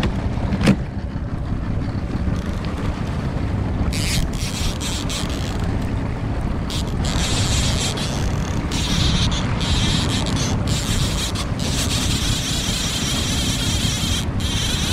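Wind rumbling on the microphone over the running noise of a small fishing boat trolling on choppy water. There is a short knock about a second in, and a higher rushing hiss joins from about four seconds in.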